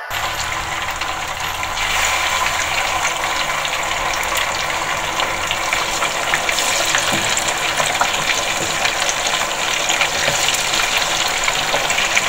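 Quail pieces deep-frying in a pot of hot oil: a steady sizzle thick with small crackles and pops, a little louder about two seconds in.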